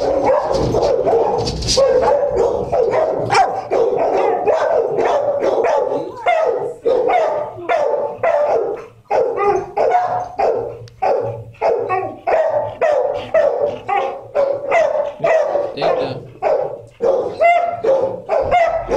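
Shelter dogs barking loudly and without a break, a fast run of short barks about two a second.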